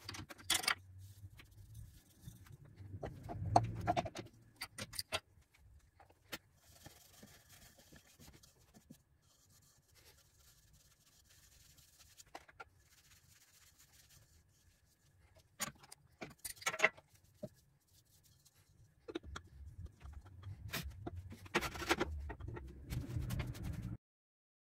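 Scattered metallic clicks, clinks and knocks from a wood lathe's chuck being handled with the motor stopped, as the turned wooden pot is loosened in the jaws. There are quiet stretches between the sounds and a few busier clusters, and the sound cuts off suddenly near the end.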